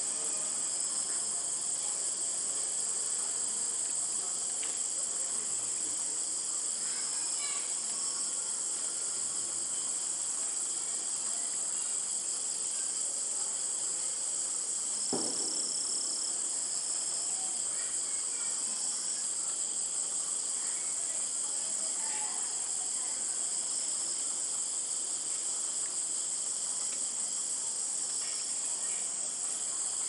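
Steady, unbroken chorus of night-calling insects, high-pitched, with a few faint chirps over it. A single soft thump comes about halfway through.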